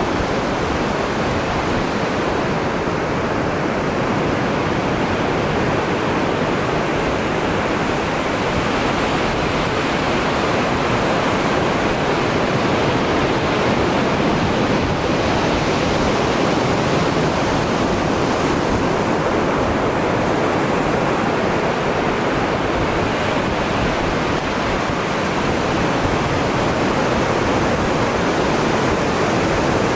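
Ocean surf breaking along the shore: a steady, unbroken wash of waves.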